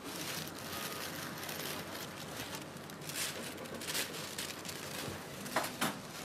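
Wrapping paper rustling and crinkling as it is folded and gathered around a bouquet by hand, an irregular rustle with a few sharper crinkles about three and four seconds in and again near the end.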